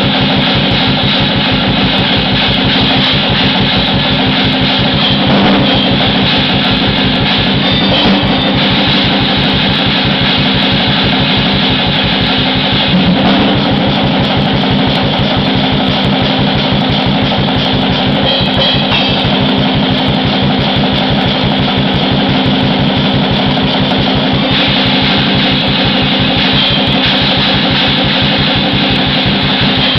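Black metal played loud: fast, unbroken drumming with distorted guitar.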